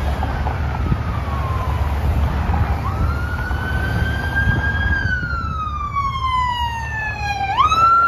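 Police car siren wailing in long, slow sweeps: the pitch falls over a couple of seconds, climbs again about three seconds in, falls again, then sweeps up quickly near the end, where it is loudest. It plays over the low rumble of passing road traffic.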